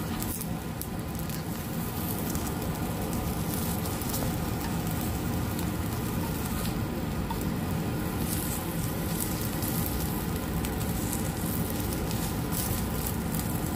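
Stuffed eggplant slices shallow-frying in a little oil in a nonstick pan: steady sizzling, dotted with small pops and crackles.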